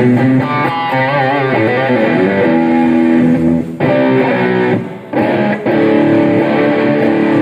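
Amplified electric guitar playing a lead melody during a band sound check, the notes bent and held with vibrato, with a short break about five seconds in.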